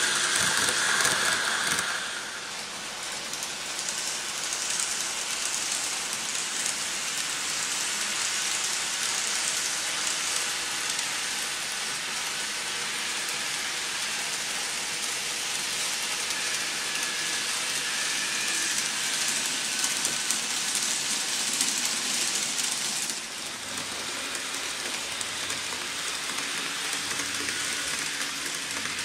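N-gauge model trains running on layout track: a steady, fine rain-like clatter of small wheels on the rails, with a faint whine in the first couple of seconds. The sound shifts abruptly about two seconds in and again near the end.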